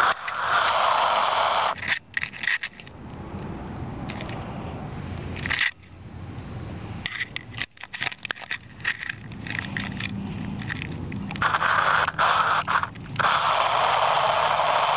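A small RC car's motor and gears running in spurts of throttle as it drives in mud, loud near the start and again over the last few seconds, quieter in between. The owner says the car really is messed up, and this is what it sounds like.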